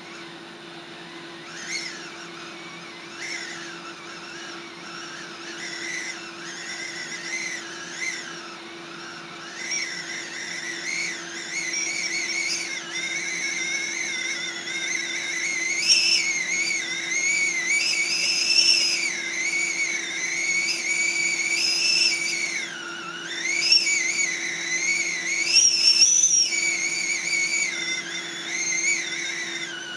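Steam whistle of a kettle of boiling water on a gas stove, sounding a high note that wavers up and down. It starts faint about two seconds in and grows louder, over a steady low hum.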